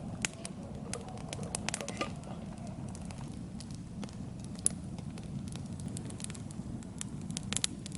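Small trickle of spring water, a steady low rush with many irregular small clicks and patters.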